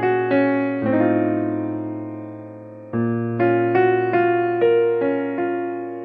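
Background music: a slow melody on piano or electric piano, each note struck and left to ring. A chord is held and fades about a second in, and new notes begin about three seconds in.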